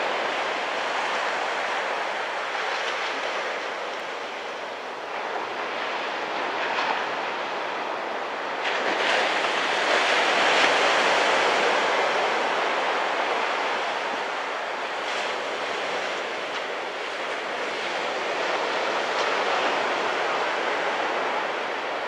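Small surf breaking and washing in, a steady rush of water that swells for a few seconds about nine seconds in.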